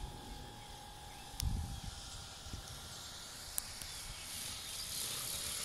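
Faint whine of the electric model plane's motor at low throttle on its landing approach, fading out within the first two seconds. There is a dull thump about a second and a half in, and a soft rushing hiss that grows toward the end.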